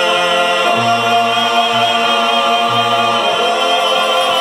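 Background music of long, sustained sung chords, changing about a second in and again after about three seconds.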